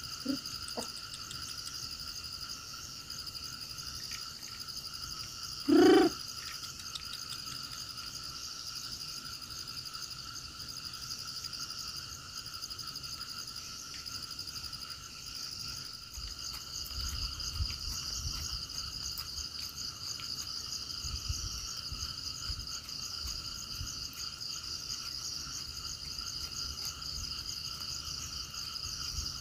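Steady chorus of insects and frogs, a constant high shrill in several layers. About six seconds in, one short, loud animal call cuts across it.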